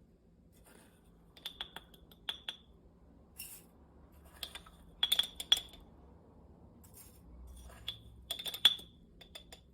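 Light clinks and taps of glassware, with a short ring after each, coming in small irregular clusters; the loudest one is near the end.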